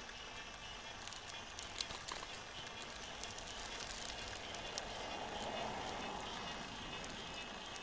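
Bicycle rolling along an asphalt road: steady tyre and wind noise with light metallic rattles and clicks from the bike, mostly in the first half. A swell of noise builds and fades about five to six seconds in.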